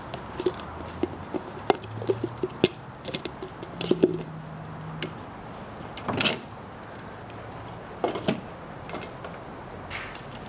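Empty plastic yogurt container knocking and scraping over dry grass as an Australian Shepherd puppy carries and mouths it: irregular clicks and knocks with rustling in between.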